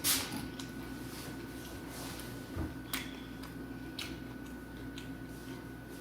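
Close-miked eating of Popeyes fried chicken: a sharp crunchy burst at the start, then soft chewing with a few wet mouth clicks and a dull knock. A steady faint hum runs underneath.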